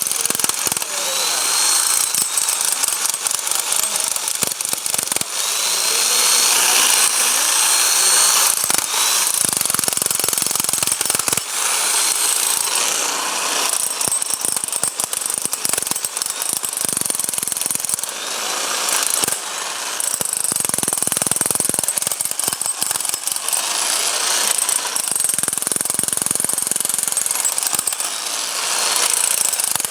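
Bosch hammer drill running in hammer action, a rapid continuous hammering with a few brief dips in loudness.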